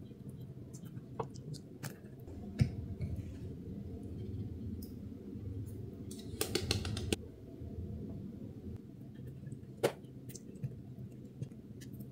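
A block of reformed powder being crushed by hand, giving scattered crunches and clicks, with a quick run of crackles about six and a half seconds in.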